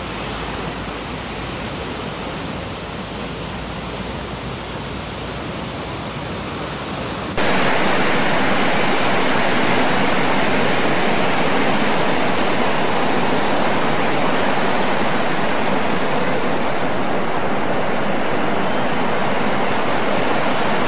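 Steady roar of breaking ocean surf, rising abruptly about seven seconds in and then holding steady.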